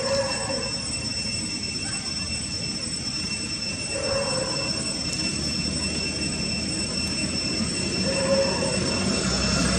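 A steady, high-pitched insect drone holding one pitch throughout, with a short low call heard three times about four seconds apart.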